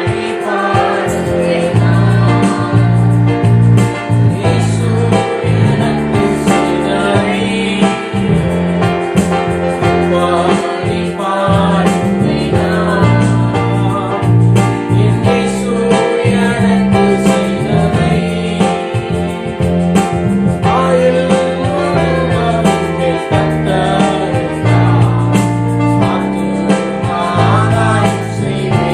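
Christian worship song: singing over instrumental accompaniment with a steady, slowly changing bass line.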